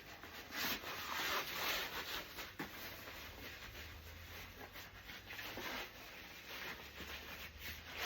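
Soft rubbing and rustling as Graco Pack 'n Play playard parts are worked and pushed through a slot, with scattered brief scrapes.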